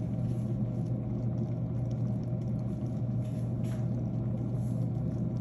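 Steady low rumbling hum of a covered stainless pot of beef and cabbage soup boiling on an electric stove.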